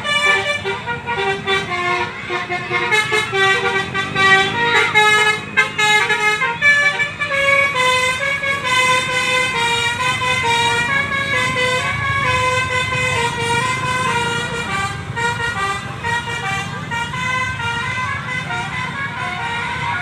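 Indonesian bus 'telolet' horn, a multi-tone musical horn, playing a running tune of short notes that step up and down in pitch, over a low engine rumble.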